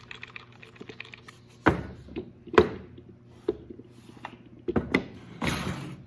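Walnut puzzle box being handled and its lid worked: a series of wooden knocks and clicks, then a short scrape near the end.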